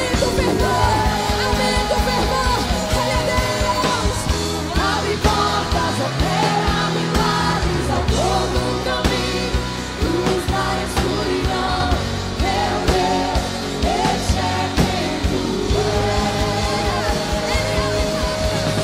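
Live Portuguese-language praise and worship music: female vocalists sing into microphones over a full band accompaniment with a steady beat.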